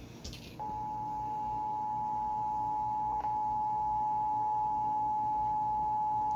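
Emergency Alert System two-tone attention signal, the 853 Hz and 960 Hz tones sounding together in one steady, unwavering tone that starts about half a second in. It announces an incoming severe thunderstorm warning.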